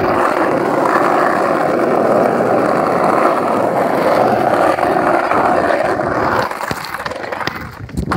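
Skateboard wheels rolling over rough asphalt, a steady loud rumble that fades away about six and a half seconds in. A few light clicks follow, then a sharp knock near the end.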